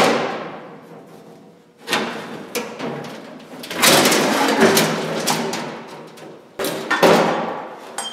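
Thin sheet-metal hood of an Oliver 770 tractor being worked loose and lifted off by hand: a series of clanks and knocks, with a longer rattling scrape in the middle as the panel slides free.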